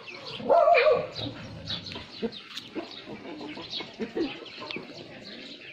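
Animal calls: one loud, wavering whine about half a second in, over a run of short, high chirps.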